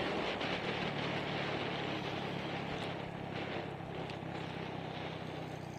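Motorcycle engine running at a steady, even pitch while riding at cruising speed, under a constant rush of wind noise on the microphone.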